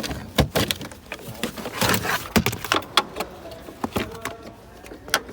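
A run of irregular sharp clicks and knocks, with a short rustle about two seconds in.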